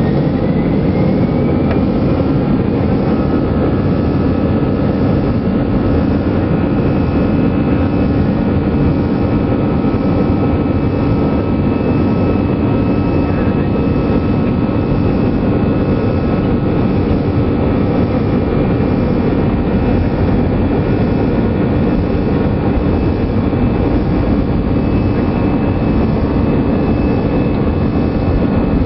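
Airbus A320's twin turbofan engines at takeoff power during the takeoff roll, heard from inside the cabin over the wing: a loud, steady rush with a whine that rises over the first couple of seconds as the engines spool up, then holds steady.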